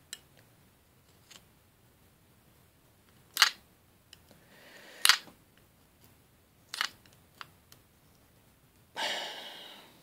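A metal pry tool working at the edge of a plastic reed switch case, giving about three sharp plastic clicks spread over several seconds. Near the end comes a longer, louder rasping sound of plastic being forced.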